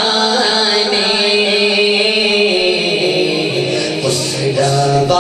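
A man singing a naat, an Urdu devotional poem, solo into a handheld microphone and amplified through a sound system. The long notes are held and waver in pitch, and the line drops lower near the end.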